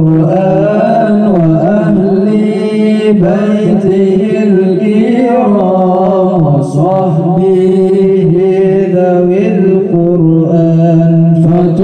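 A man chanting shalawat into a microphone in the melismatic Qur'an-reciter (qori) style, holding long notes that wind slowly up and down without a break.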